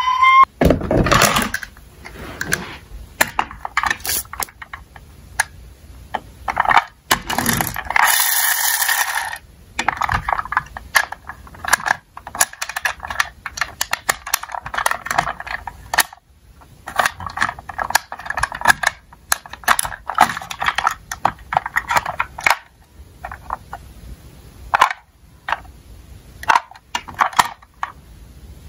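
A toy siren's rising wail cuts off just after the start. Then small diecast toy cars clatter and click irregularly, metal bodies and wheels knocking on a toy slope and against each other, in busy runs with short gaps.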